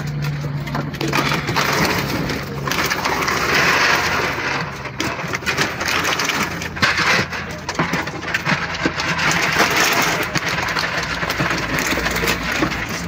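Dry dog kibble pouring and rattling into a plastic basin: a dense patter of many small hard clicks.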